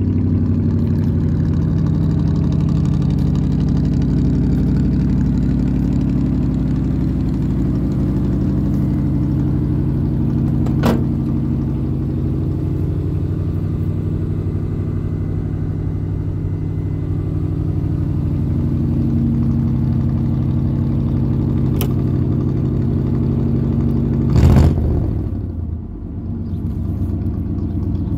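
1982 Dodge D250's 318 V8 on a four-barrel carburettor idling steadily through dual exhaust with glasspack mufflers. Two light clicks come about a third and two-thirds of the way in, and a brief loud thump about three-quarters of the way through.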